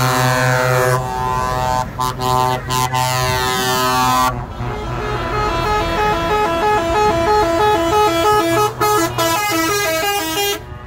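Truck air horns blasting from passing trucks: sustained multi-tone horn chords with short breaks, then, about four seconds in, a musical horn plays a quick tune of stepping notes that cuts off abruptly near the end.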